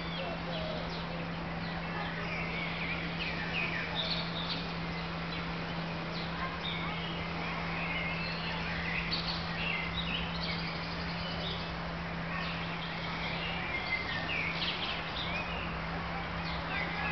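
Birds chirping: many short, high calls scattered throughout, over a steady low hum and constant background noise.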